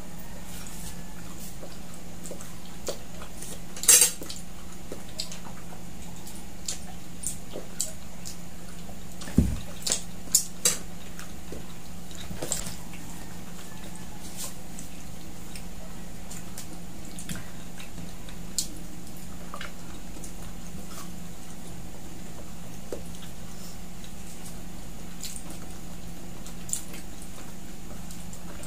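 Scattered clinks and taps of tableware and plastic food containers as people eat at a table, loudest about four seconds in and a few together around ten seconds, over a steady low hum.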